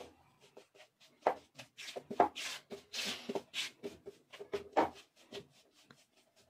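Silicone spatula stirring and scraping thick besan roasting in ghee in a nonstick frying pan: irregular soft scraping strokes, some louder than others, with short pauses between them.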